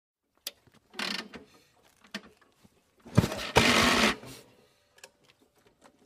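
Mechanical clicks and clunks from a motorcycle before its engine is running: a few sharp clicks and a short clatter about a second in. The loudest is a clunk about three seconds in, followed by roughly half a second of harsh clatter.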